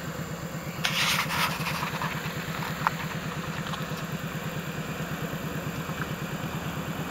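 ATV engine idling with a rapid, even putter while the four-wheeler sits half-submerged in pond water. A brief rushing noise about a second in and a single click near three seconds.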